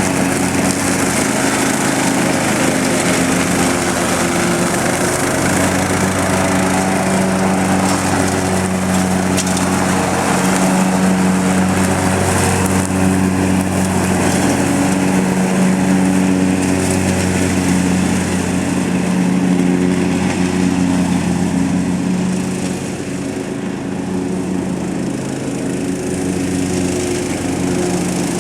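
Lawn mower engine running steadily under load while its all-weather mulching blade chops up leaves, with the discharge chute removed; the engine pitch wavers slightly and the sound eases a little for a few seconds near the end.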